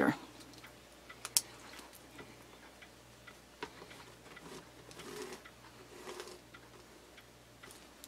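Faint scratching of a pen drawing a line along a wooden ruler on quilt batting, with a few light clicks and taps of the pen and ruler against the wooden table. The sharpest click comes about a second and a half in.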